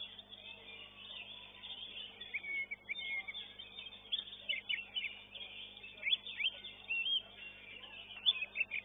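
Oriental magpie-robins (kacer) singing in contest: clusters of quick, clear whistled notes that sweep up and down, loudest about two and a half seconds in, around six seconds in and near the end.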